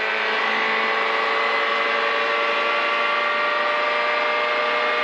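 Peugeot 208 T16 R5 rally car's turbocharged 1.6-litre four-cylinder at full throttle, its pitch climbing slowly as the car gathers speed, heard from inside the cabin.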